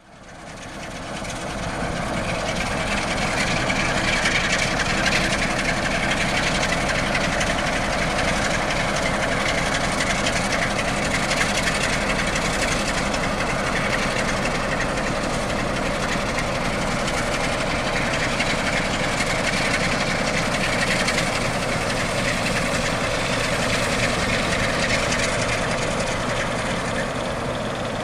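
Sulzer-engined Electroputere LDE2100 (060-DA) diesel-electric locomotive's engine running steadily at the head of a freight train. It fades in over the first two seconds.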